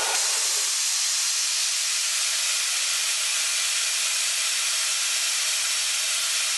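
Compressed air rushing out of an open blow gun on a compressor tank's outlet: a steady, loud hiss with no breaks.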